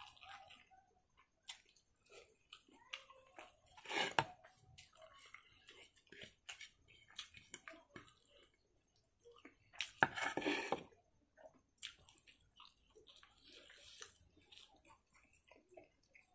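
Close-up mouth sounds of a person eating rice and pork by hand: wet chewing and smacking, with squishing as fingers work the rice. Two louder bursts about four and ten seconds in stand out from the steady run of small clicks.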